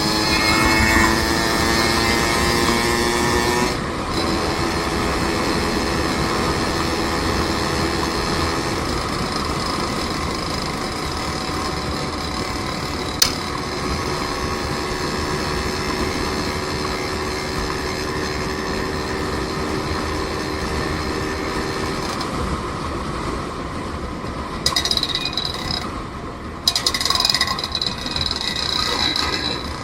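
Vehicle engine under way, rising in pitch for the first few seconds, then dropping at a gear change about four seconds in. It runs on steadily, and after about twenty-two seconds the engine note fades, with a few sharp clicks and clatters near the end.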